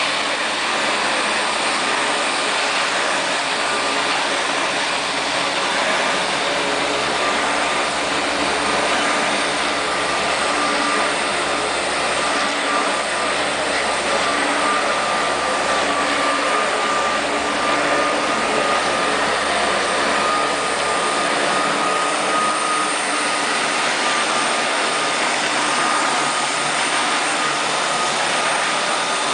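Flymo Hover Compact 330 corded electric hover mower running steadily, its motor and fan giving an even rushing sound with a thin high whine over it.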